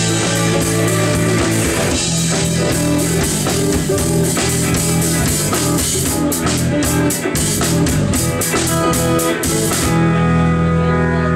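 Live rock band playing at full volume: guitars, bass and drum kit with cymbals. About ten seconds in the drums and cymbals stop and a held chord rings on.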